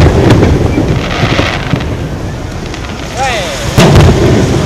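Aerial firework shells bursting: a loud boom at the start that rumbles and echoes away, then a second loud boom near the end.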